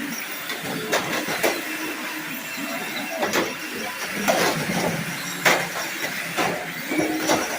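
Radio-controlled cars driving in a demolition derby, their motors whining, with sharp knocks about once a second or so as the cars collide.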